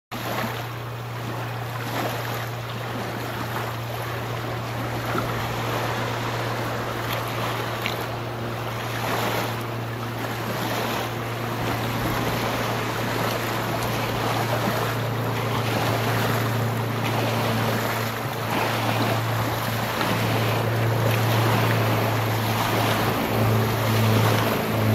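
Boat with a 2.4 Vortec engine running at speed, a steady low engine drone that grows louder near the end as the boat comes closer, under wind noise on the microphone.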